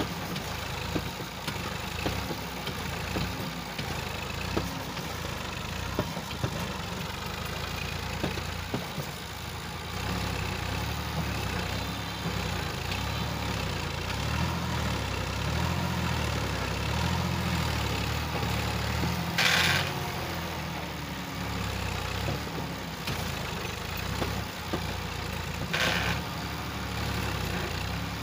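Massey Ferguson 260 Turbo tractor (Millat-built) diesel engine running under load while it hauls a loaded sand trolley, with the engine note rising and falling. Two short bursts of hissing noise come about two-thirds of the way in and again near the end.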